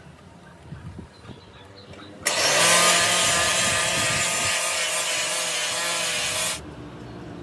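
A power tool runs hard for about four seconds, starting suddenly a couple of seconds in with a steady whine over loud rasping noise, then cuts off abruptly.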